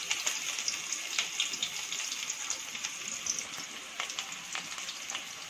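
Sliced onions frying in hot oil in a pot: a steady sizzle with many small crackles and pops.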